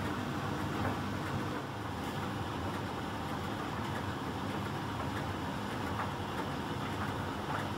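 Miele Professional PT 7186 XL commercial tumble dryer running in its heated drying phase: a steady hum from the drum motor and heating blower fan as the 8 kg drum turns a load of cloth rags, with a few faint knocks from the tumbling load.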